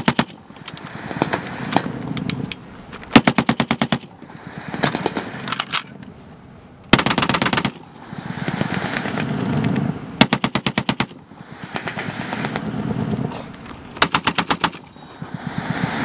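Browning M2 .50 caliber heavy machine gun firing four short bursts of roughly eight to ten rounds each, a few seconds apart, with quieter firing from farther off in between.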